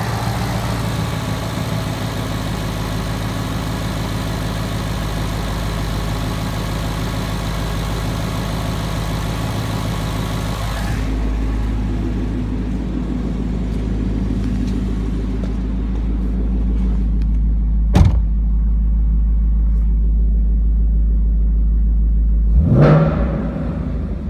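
2014 Ford Mustang GT's 5.0-litre Coyote V8 idling steadily. The sound turns duller about halfway through. There is a single sharp knock about 18 seconds in, and near the end one quick blip of the throttle that rises and falls in pitch.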